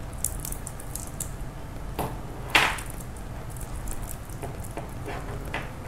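Small handling sounds of coloring on a paper page at a desk: a few short scratchy strokes and faint clicks, with one louder, brief scratch about two and a half seconds in, over a steady low hum.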